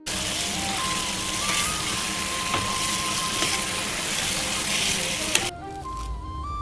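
Food sizzling and frying in hot oil in a pan, with a few sharp clicks of stirring. The sizzle cuts off suddenly about five and a half seconds in, leaving a flute melody playing over it.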